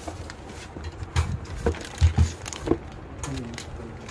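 A handful of short knocks and thumps, about five between one and three seconds in, over a low steady rumble.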